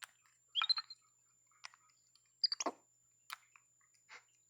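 Capuchin monkey eating insects: wet chewing and squishing, with a few short clicks and brief high squeaks.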